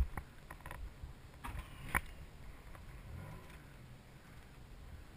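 Sharp metallic clicks and light rattles from the pickup-truck hang-glider tow rig's hardware, the loudest right at the start and about two seconds in, over a low steady rumble.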